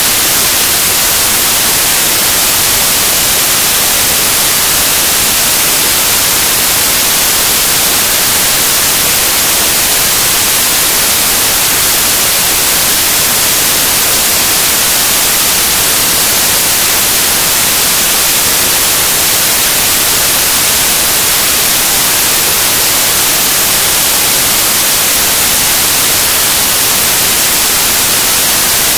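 Loud, steady static hiss, strongest in the high end, with no other sound coming through: noise on the recording's audio track rather than sound from the pitch.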